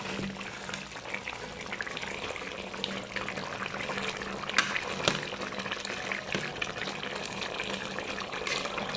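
Chicken curry simmering in an uncovered pot on low heat, the sauce reducing, with a few light clicks over the steady noise.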